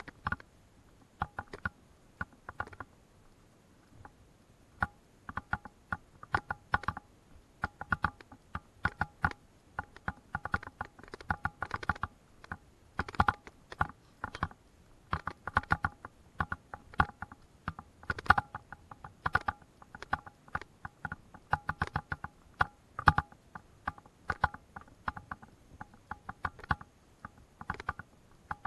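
Footsteps on a narrow wooden plank boardwalk: irregular hollow clacking knocks as the loose boards are stepped on and knock together.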